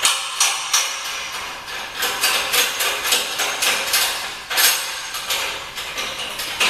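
Spring-loaded metal truss clamp clinking and knocking against aluminium truss tube as it is put on and tightened: an irregular run of sharp metallic clicks and taps.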